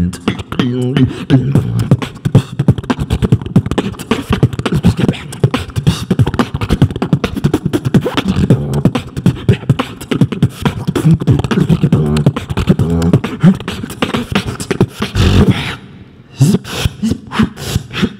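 Human beatboxing into a handheld microphone: a fast, dense rhythm of kick, snare and hi-hat-like mouth sounds over a low bass line. Near the end it drops out briefly after a deep bass hit, then comes back in separate, spaced hits.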